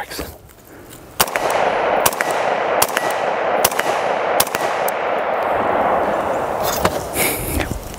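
Unsuppressed direct-impingement AR-15 rifle with a 5.1 oz H3 buffer fired semi-automatically five times, about 0.8 s apart, starting about a second in, over a steady hiss. The rifle cycles on each shot.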